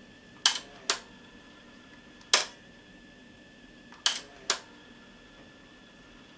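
Five sharp mechanical clicks: a pair, a single one, then another pair. These are the cassette deck's transport keys being worked on a Toshiba RT-S93 boombox whose tape mechanism is not engaging.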